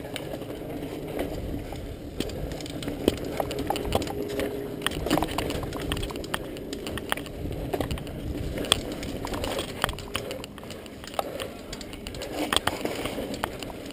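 Mountain bike ridden over a rough dirt trail: tyres rolling and the bike rattling, with many short clicks and knocks over the bumps.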